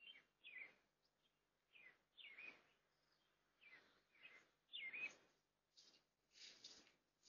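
A bird chirping over and over, short hooked calls about one a second, picked up through a doorbell camera's microphone, which cuts to silence between calls.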